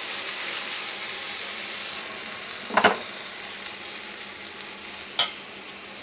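Spiced tomato-onion masala sizzling in a non-stick kadhai as a spatula stirs it, a steady hiss broken by two brief knocks of the spatula on the pan, about three and about five seconds in.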